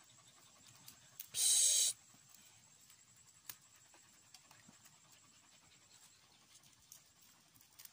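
Faint scattered clicks and rustles of fingers peeling a small clove over a banana leaf. A short, loud hiss lasting about half a second comes about a second and a half in.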